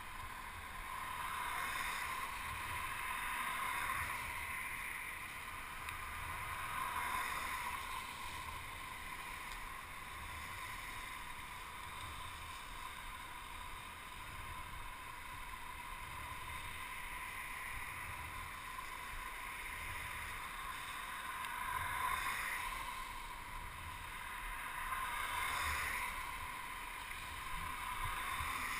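Steady rushing noise of a mountain bike riding over wet pavement: wind on a helmet-mounted camera and tyre hiss, swelling and fading every few seconds.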